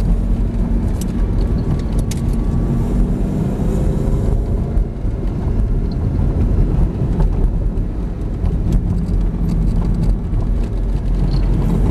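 Lamborghini Gallardo's V10 engine running at part throttle under a heavy low rumble of tyre and wind noise, heard from inside the cabin.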